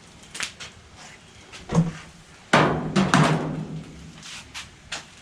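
A series of sharp knocks and clunks, the loudest a cluster of several about two and a half to three and a half seconds in, with a low hum under that cluster.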